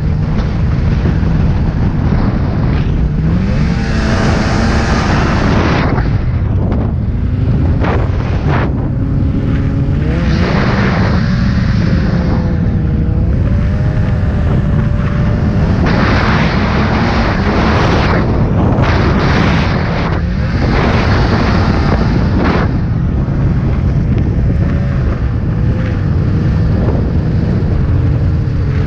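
Snowmobile engine running at speed through deep snow, its pitch rising and falling with the throttle, mixed with repeated bursts of rushing noise from wind and snow spray.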